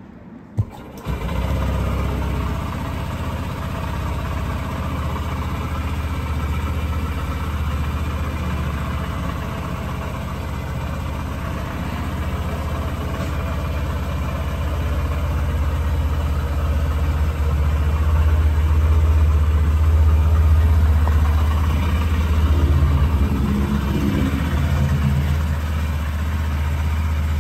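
Honda CB125F's 125cc single-cylinder four-stroke engine starting about a second in, then idling steadily.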